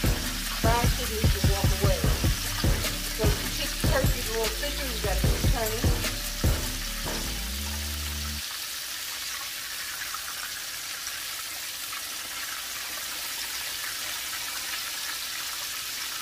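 Battered turkey thighs deep-frying in hot oil in a cast-iron skillet, a steady sizzle. Background music with a beat plays over it for the first half and stops about halfway through, leaving only the sizzle.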